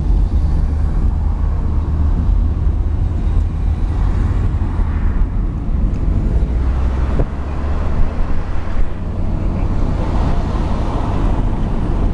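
Steady low rumble of a moving taxi heard from inside the cabin: engine and road noise while driving.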